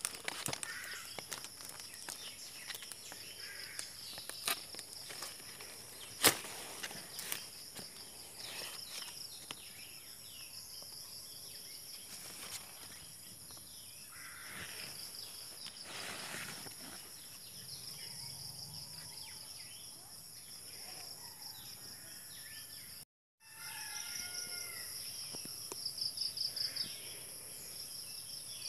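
Outdoor rural ambience: a steady, high-pitched insect chorus that pulses into rapid trills near the end, with scattered bird chirps and a sharp click about six seconds in. The sound cuts out completely for a moment about three-quarters of the way through.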